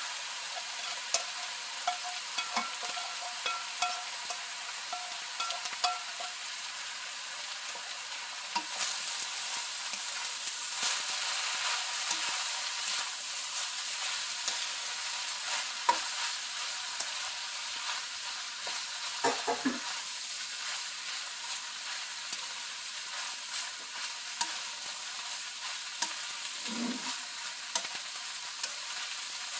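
Fried rice with egg, ham and vegetables sizzling in a hot pan as a spatula stirs and tosses it: a steady frying hiss broken by frequent short scrapes and taps of the spatula against the pan.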